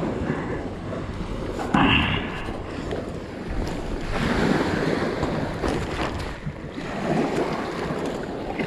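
Wind buffeting the microphone over small waves lapping on a gravel shoreline, with a brief louder burst of noise about two seconds in.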